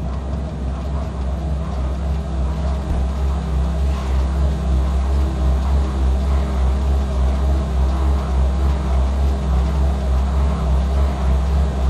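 Low, steady rumbling drone with an even, slow throb that grows a little louder about four seconds in: an ominous suspense soundtrack.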